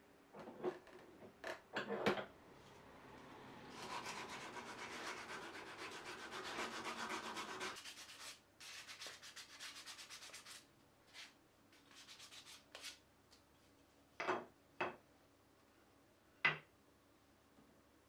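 A wooden part being hand-sanded with a sheet of sandpaper: quick back-and-forth rubbing strokes, densest through the middle. A few sharp knocks of wood come near the start and again near the end.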